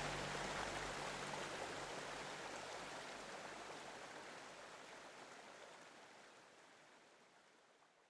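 Rushing river water, a steady even wash, fading out smoothly to nothing, with a faint low steady hum underneath that fades first.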